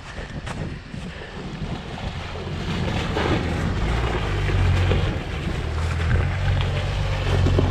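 Off-road vehicle's engine running under load, growing louder over the first few seconds and then holding a steady low note, with a few knocks and rattles and wind-like rushing noise.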